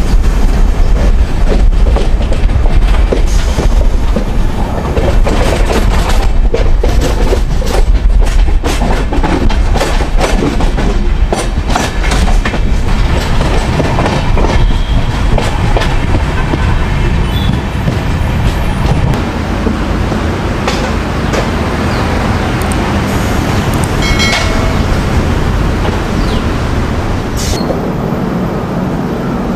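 Deccan Express passenger train running at speed, heard from on board: a heavy rumble with the wheels clattering over rail joints, the clatter thick over the first half and smoother later.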